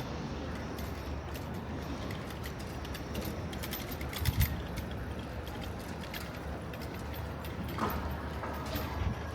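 Street ambience of a busy pedestrian square: many hard footsteps and small clicks over a steady low city hum, with a louder low thump about four seconds in.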